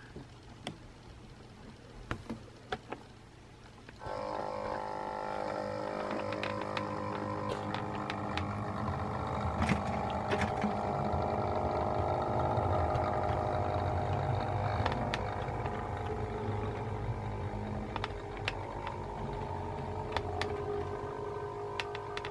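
Model Class 37 diesel locomotive pulling away with its coaches on model track: a steady mechanical hum made of several held tones starts suddenly about four seconds in and runs on, with scattered sharp clicks from the running train.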